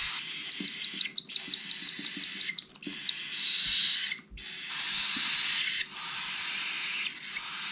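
Baby cockatiel chicks giving their raspy food-begging calls while being hand-fed: a rapid chatter of short chirps, about eight a second, for the first couple of seconds, then a steady hissing rasp with a brief break near the middle.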